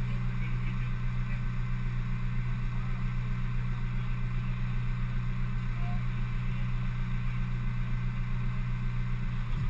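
Honda Civic Type R FN2's 2.0-litre four-cylinder engine idling steadily while the car stands still.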